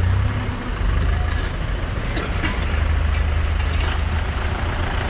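Motorcycle engines idling in stopped road traffic: a steady low rumble under the noise of the surrounding vehicles.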